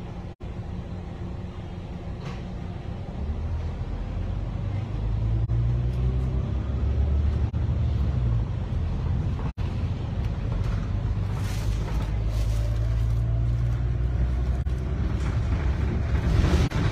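City bus engine heard from inside the bus as it moves off: a low rumble that grows louder over the first few seconds with a faint rising whine as it gathers speed, then runs on steadily while cruising.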